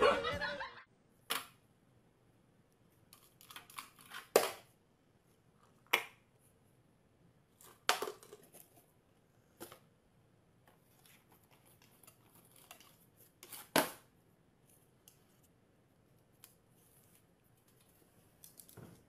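Sparse sharp clicks and knocks, spaced a second or more apart, over quiet room tone.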